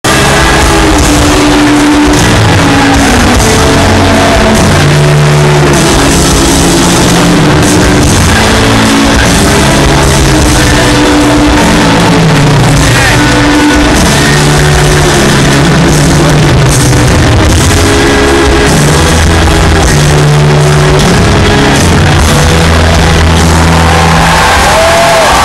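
A live rock band playing loud, sustained heavy chords with a deep held bass line. It is recorded from the audience, overloaded and distorted, with the recording close to full scale.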